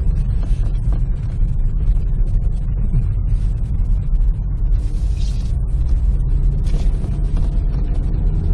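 Car driving along a rutted, muddy dirt track, heard from inside the cabin: a steady low rumble of engine and tyres, with frequent knocks and rattles as the car jolts over the ruts.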